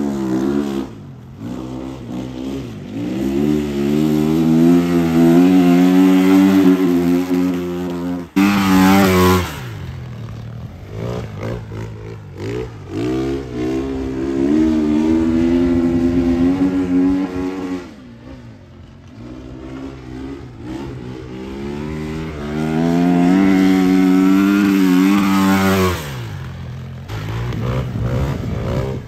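Flat track motorcycle's engine revving up hard and backing off again and again as it laps a dirt oval. The pitch climbs on the straights and drops into the turns, and it is loudest as the bike passes close, several times over.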